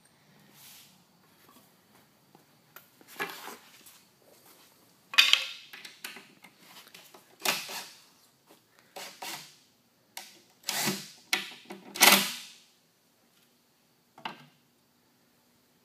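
A series of separate knocks and clatters, a second or two apart, from wooden boards and a cordless drill being handled against a wooden box.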